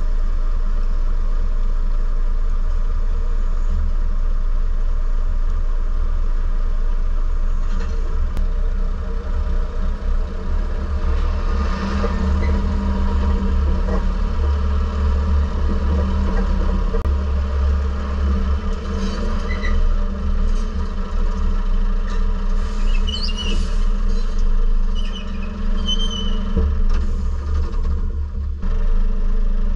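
Telehandler diesel engine running as it lifts packs of roof panels off a flatbed trailer, under a steady low rumble, working harder through the middle. A few short high beeps come a little past two-thirds of the way through.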